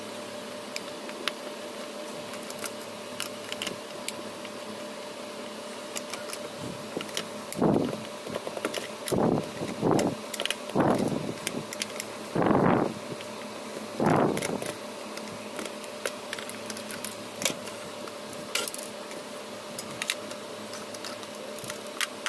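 Small clicks and handling noises of hand tools working on a plastic speaker casing, over a steady hum, with about six louder scraping bursts between a third and two-thirds of the way through.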